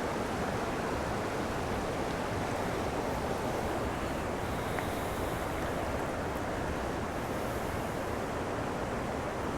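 Steady rushing of stream water, an even wash of sound with no change.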